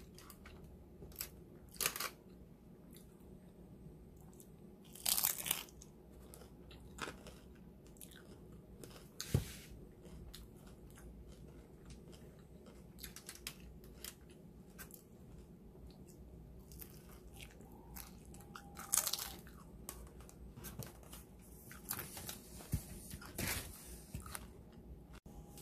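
A person biting and chewing a crisp empanada close to the microphone: irregular crunches and mouth sounds, with louder bursts of crunching about five seconds in and again near nineteen and twenty-three seconds.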